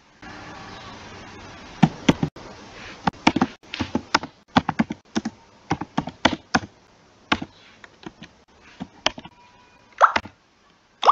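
Typing on a computer keyboard: irregular runs of sharp keystroke clicks. A steady hiss sits under the first two seconds.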